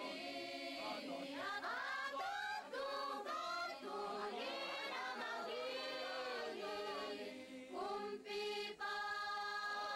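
A choir singing a hymn, many voices together; about eight seconds in the singing settles into long held notes.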